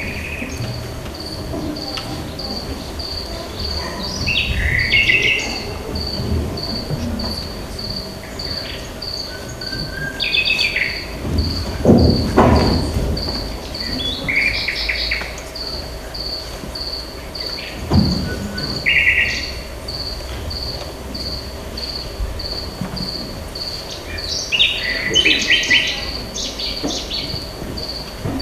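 Forest ambience played as a stage sound effect: a cricket chirping steadily about twice a second, with birds calling now and then. Two dull thuds, the louder about twelve seconds in, the other about eighteen seconds in.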